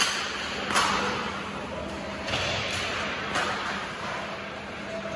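Ice hockey practice on the ice: skates scraping, with several sharp knocks of sticks and pucks, the loudest about a second in, over a faint steady low hum.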